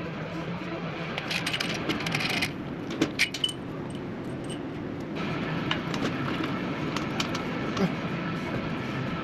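Loose metal engine parts clinking and rattling as they are handled, with a short run of rattles a little over a second in and a few sharp clinks about three seconds in. A faint steady hum joins about five seconds in.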